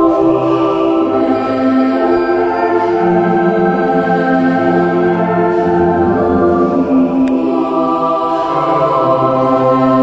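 Background music of slow, sustained chords, the held notes changing every couple of seconds.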